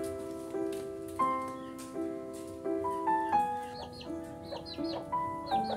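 Soft piano background music, a gentle melody of struck notes. From a little past halfway, bird chirps sound over it.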